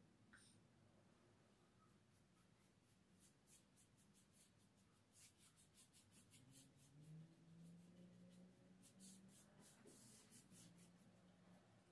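Faint, quick scratchy strokes of a paintbrush being worked back and forth along a handrail, applying a coat of paint. The strokes come in runs that start a few seconds in and grow busier towards the end.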